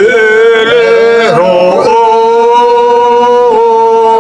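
Men singing a Hyolmo (Yolmo) folk song, a moving phrase that settles about two seconds in into one long held note.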